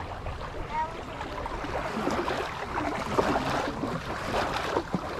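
Strong wind buffeting the microphone, with small waves lapping and splashing in an irregular patter.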